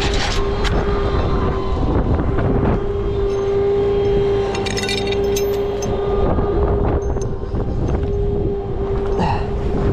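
Rollback tow truck running with a steady whine, with a few light metallic clinks of tie-down chains around the middle.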